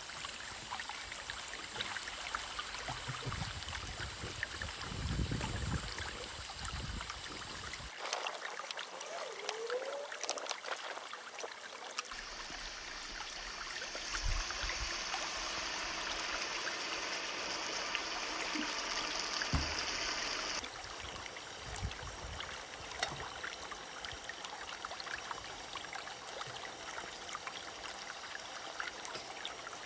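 Steady watery hissing with fine crackles. The sound changes abruptly about 8, 12 and 21 seconds in.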